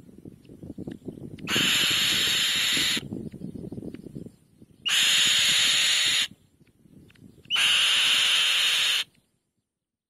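Adult black-winged kite at the nest giving three harsh, screechy calls, each about a second and a half long, over a faint low rustle.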